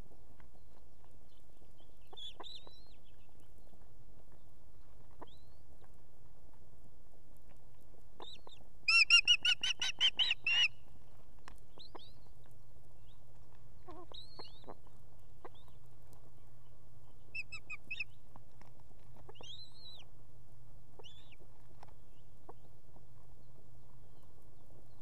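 Ospreys calling at the nest: a rapid run of about ten sharp, high whistled calls lasting under two seconds, about nine seconds in, with a few short, faint chirps scattered before and after.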